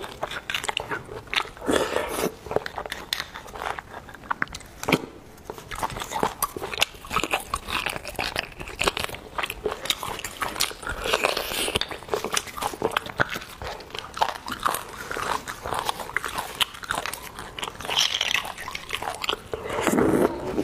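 Close-miked eating of beef bone marrow: wet chewing, lip smacks and sucking at the bone, a dense run of small irregular clicks and smacks.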